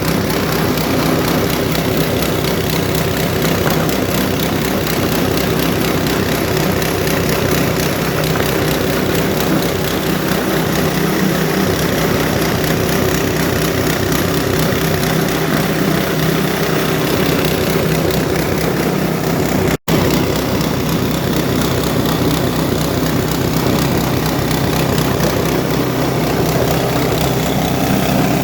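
Foam shredding machine running steadily, a loud, even mechanical drone while it is tested grinding foam into shreds. The sound cuts out for an instant about twenty seconds in.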